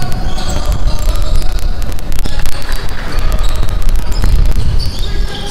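Basketball game on a hardwood gym court: a ball bouncing in repeated sharp thuds, sneakers squeaking in short high chirps, and a few shouts from players, over a steady low rumble of the hall.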